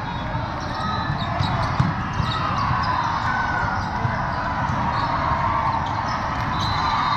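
Steady din of a large, echoing hall with many volleyball courts in play: balls being struck and bouncing, short sharp knocks and chirps, under a general crowd murmur.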